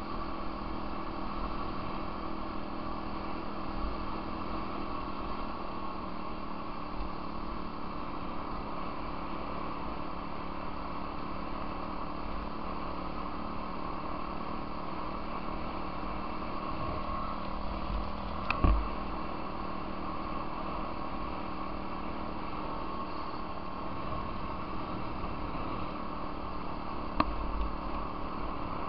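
Off-road vehicle engine running steadily at cruising speed on a gravel trail, with rumble from the ride. Two sharp knocks, one about two-thirds of the way through and one near the end.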